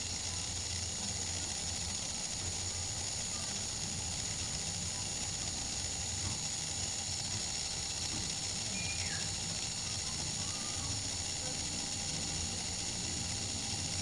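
Small brushed DC motor spinning the plastic fan disc of a homemade rotary subwoofer: a steady whirring hiss with a low hum underneath.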